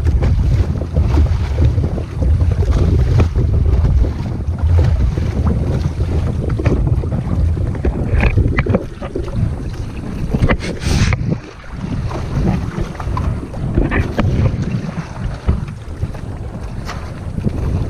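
Wind buffeting the microphone in a heavy low rumble, with choppy water splashing and knocking against the hull of a Hobie Mirage Adventure Island sailing kayak under sail. A brief high hiss about eleven seconds in.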